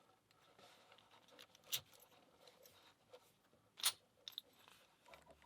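Faint handling of a padlock: small metallic clicks and taps, with two sharper clicks about two and four seconds in.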